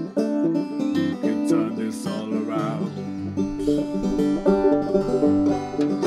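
Banjo and acoustic guitar playing together: an instrumental passage of an acoustic folk song, with steady plucked notes and strummed chords.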